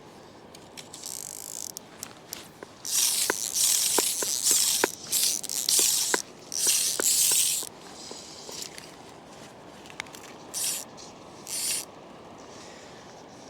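Fly reel's click-and-pawl ratchet buzzing in a series of short pulls as line is stripped off, with single sharp clicks among the pulls; the longest run of pulls is about three to eight seconds in, with two brief ones later.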